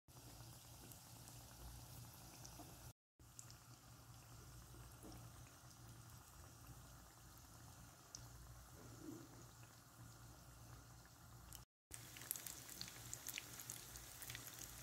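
Faint sizzling of dough buns deep-frying in hot oil, with sharper crackles and pops in the last few seconds.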